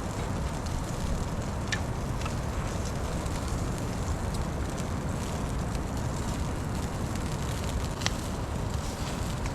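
Wood fire crackling, with a few sharp pops over a steady low rumble of wind on the microphone.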